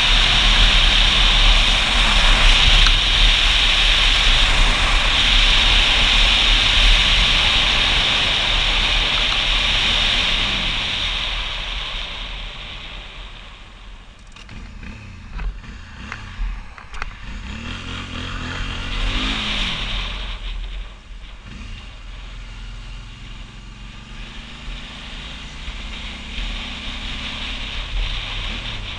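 Motorcycle ride: wind rushing loudly over the microphone at speed, fading away as the bike slows to a stop about halfway through. The engine then revs up as the bike pulls away and runs steadily at a lower level.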